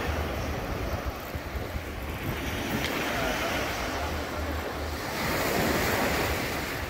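Sea waves washing onto the beach, one surging louder about five seconds in, with wind rumbling on the microphone.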